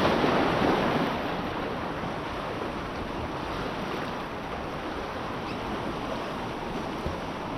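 Ocean waves washing in, a louder surge in about the first second, then a steady rush of surf.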